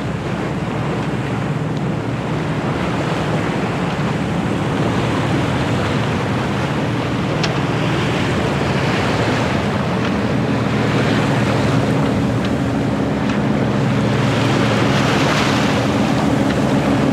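Sailboat underway on open water: the rush and splash of water along the hull and wake, with wind on the microphone and a steady low hum underneath. The water rush swells louder a few times and builds toward the end.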